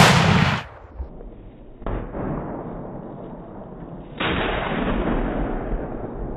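A Mosin-Nagant M44 carbine fires a 7.62×54mmR round: one sharp, very loud shot that dies away within about half a second. It is followed by the slowed-down, muffled sound of the slow-motion replay, with a drawn-out boom about two seconds in and a louder, long one about four seconds in.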